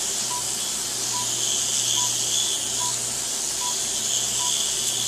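Steady hiss of a liposuction suction machine drawing liquefied fat through a 3 mm cannula, over a low machine hum. A short high beep repeats evenly about every 0.8 s from a patient monitor.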